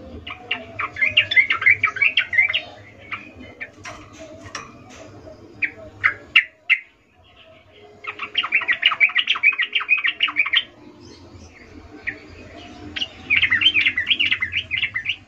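Yellow-vented bulbul (trucuk) singing: three bursts of rapid, bright chattering song, separated by a few scattered single notes.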